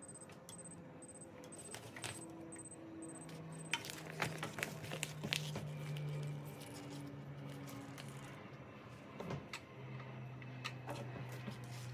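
A vacuum-sealed plastic bag holding a sausage crinkles and rustles as it is lowered into a stainless steel pot of hot water, with light clicks and taps against the pot. The crackling comes in two spells, the second starting a little past the middle.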